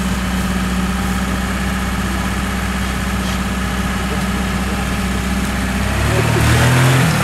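Lada Niva's engine running steadily at low revs as the 4x4 crawls over rough off-road ground. About six seconds in, the engine note climbs and gets a little louder as it is given more throttle.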